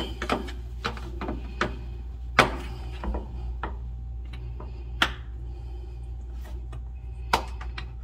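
Scattered light clicks and knocks of a refrigerator's plastic drain tubes being handled and pushed onto their fittings at the drip pan, the loudest about two and a half, five and seven and a half seconds in, over a steady low hum.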